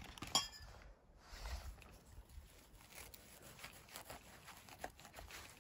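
Faint rustling of grass and leafy plants as a gloved hand pushes through them toward a mushroom, with a brief sharper rustle near the start and scattered soft ticks after it.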